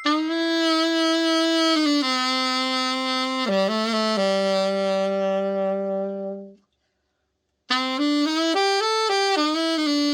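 Yamaha YAS-82Z alto saxophone, freshly overhauled, played in long held notes that step down into its low register, with a quick flurry of notes in between. The sound cuts off abruptly for about a second, then the playing resumes with a short fast phrase and settles on a long held note.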